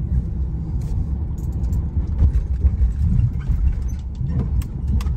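Ford Transit van's road noise heard from inside the cab: a steady low rumble of engine and tyres, with a few short knocks and rattles as it rolls over a railroad crossing.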